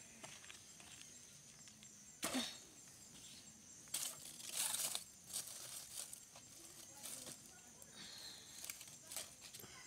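Leaves and firewood rustling and crinkling as a pot is set on a wood fire, with a short burst about two seconds in, a longer burst about four seconds in, then scattered light knocks and crackles.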